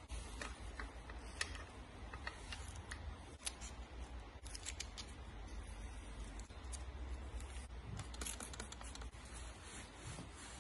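Hand tools clicking and scraping on metal bicycle frame parts during pivot bearing removal and fitting: scattered light sharp clicks coming in small clusters.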